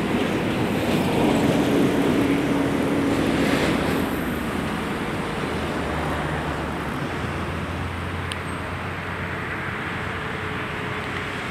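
Road traffic noise: a vehicle passes in the first few seconds with a slowly falling engine tone, then a steadier, lower rumble of traffic.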